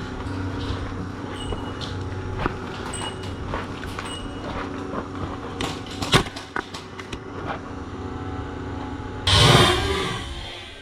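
Scattered sharp clicks and snaps of airsoft guns firing, over a steady low hum. About nine seconds in comes a loud rushing burst that fades away over about a second.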